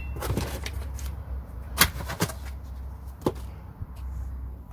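Four short sharp knocks and clicks, the loudest about two seconds in, over a low steady hum: diesel heater kit parts being handled and set down.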